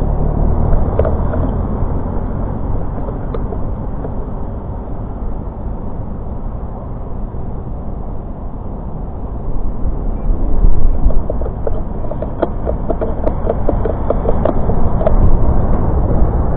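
Wind buffeting a bicycle-mounted action camera's microphone while riding, with steady tyre and road rumble. Scattered light clicks, and a short spell of rapid rattling about two-thirds of the way through.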